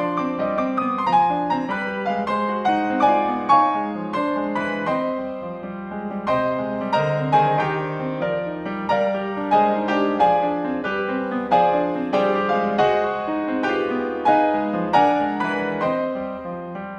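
Solo grand piano playing a steady stream of notes, several a second, over held lower notes.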